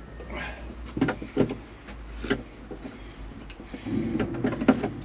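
Irregular metallic clicks and knocks of hand tools working on a car's rear hatch hinge bolts, over a steady low rumble of wind on the microphone.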